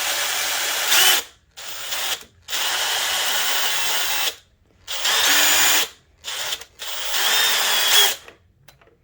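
Power drill running in about six short bursts as its bit drills the fiber reinforcement core out of the end of a 10 mm reinforced polyurethane V belt. The drill stops a little past eight seconds in.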